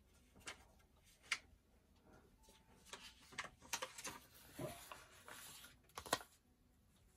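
Paper and fabric being handled: scattered light rustles and taps, with a sharper click about a second in and another near six seconds in.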